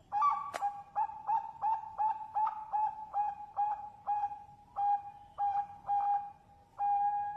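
Zebra dove (perkutut bangkok) cooing: a run of short, clear, even-pitched notes, about three a second, slowing into a few longer notes near the end. A sharp click sounds about half a second in.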